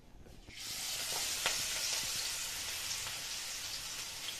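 Leafy-greens fritter batter dropped into hot oil in a kadai starts sizzling about half a second in, a steady sizzle with scattered small crackles as the fritters fry.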